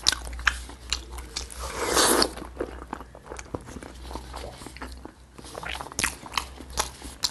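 Close-miked mouth sounds of biting and chewing sticky, gelatinous braised pork trotter skin: a run of wet smacking clicks, with one longer, louder wet sound about two seconds in.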